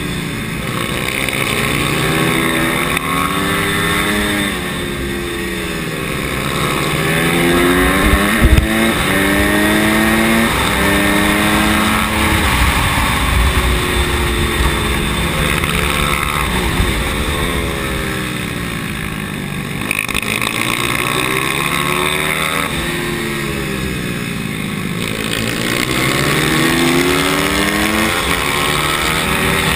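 Pit bike's small single-cylinder engine heard on board, revving up through the gears on each straight and dropping back under braking into the corners, over and over, with other pit bikes' engines close by. A brief sharp knock about eight seconds in.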